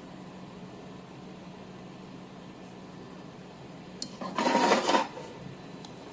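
CW laser welding machine humming steadily, with a loud hissing burst about four seconds in that lasts under a second.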